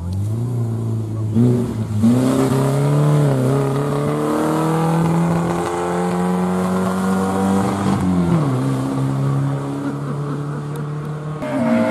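Rally car engine under load, its pitch climbing steadily for several seconds, then falling away sharply about eight seconds in before picking up again near the end.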